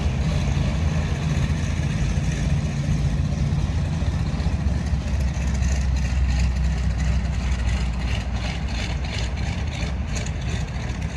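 Ford Tri-Motor's three radial engines running steadily at low power, a deep, continuous rumble that eases slightly near the end.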